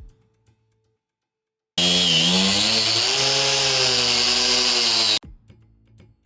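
Electric power saw cutting through a board for about three seconds, its motor pitch dipping and then holding steady; it starts and stops abruptly.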